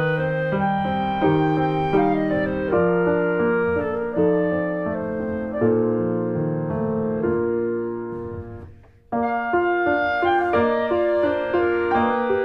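Background piano music playing a slow melody; it fades down and briefly cuts out about nine seconds in, then starts again abruptly.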